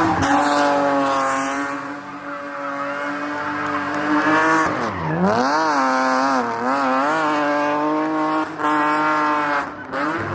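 Porsche 911 SC's air-cooled flat-six rally engine at high revs under load. About five seconds in the revs drop sharply, then climb back and rise and fall several times. They drop briefly once more near the end.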